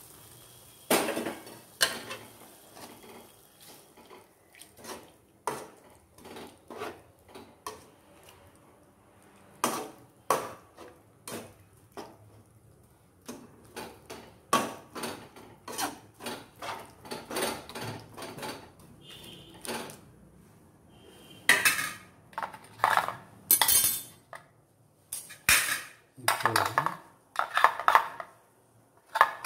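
Stainless steel kitchenware clinking and scraping: a slotted spatula knocking against a steel pot and idli steamer plates being handled, in a long run of short metallic knocks that grows busier and louder near the end.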